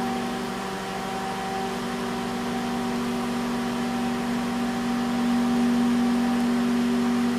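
Microwave oven running, a steady hum with fan noise, while heating a boiled egg.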